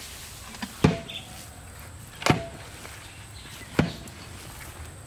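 Three sharp metal clanks about a second and a half apart, the first two with a brief ring: a large metal cooking pot and its lid being knocked as the lid is lifted off.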